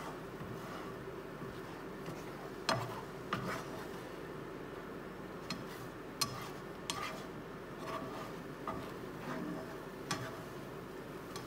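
Black slotted spatula scraping and knocking around a nonstick frying pan while scrambling a plant-based egg substitute, over a steady low sizzle. The sharpest knocks come about a quarter of the way in and again about halfway.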